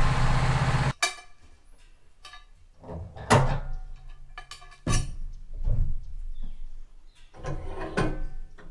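Sawmill engine running steadily, breaking off abruptly about a second in. Then a series of separate knocks and ringing clanks, about five main ones, as a log is rolled with a cant hook on the sawmill's steel bed.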